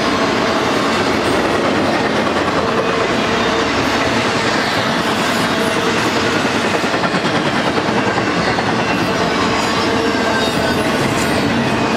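Intermodal freight cars, trailer flats and double-stack well cars, rolling past at speed: a steady, loud rumble and clatter of wheels on rail, with a faint wheel squeal coming and going.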